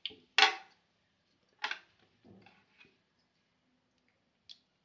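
Mustard seeds popping in hot oil during a tempering: a few irregular sharp pops and crackles. The loudest comes about half a second in, with fainter ones after.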